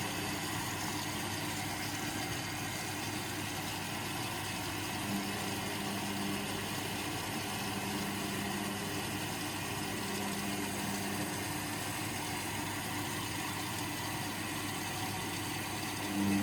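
Indesit washing machine starting a Cotton 40 cycle, giving a steady mechanical hum with a low tone that comes in and drops out several times.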